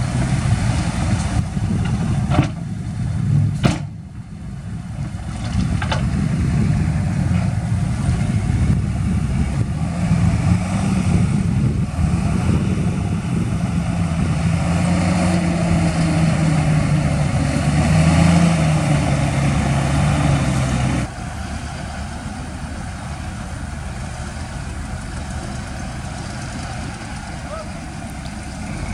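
Heavy diesel engine of earthmoving equipment running, its pitch rising and falling as it works through the middle, then dropping suddenly to a lower, quieter steady run about two-thirds of the way through. Two sharp knocks a few seconds in.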